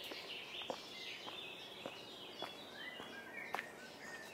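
Footsteps at a walking pace, with several songbirds singing and chirping in short gliding phrases.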